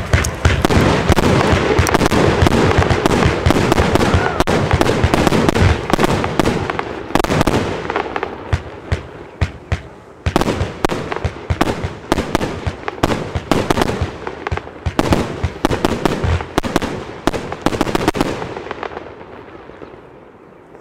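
Broekhoff Kingstown Hangover 100-shot 30 mm compound firework cake firing. For about the first seven seconds it is a dense barrage of shots and bursts, and after that separate shots follow several a second. The sound thins and fades out near the end.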